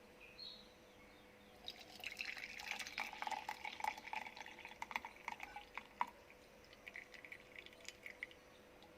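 Hot herbal decoction poured from a pan into a glass: a faint trickling pour that starts about a second and a half in, then thins into scattered drips that die away near the end.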